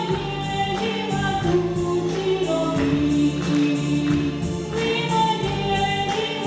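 A woman singing a song into a microphone over instrumental backing music, with held, gliding notes.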